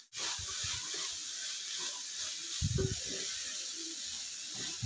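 Sprouted chickpeas, moong and moth beans sizzling in an uncovered kadhai, with a wooden spatula stirring and scraping through them. A few louder strokes of the spatula come about halfway through.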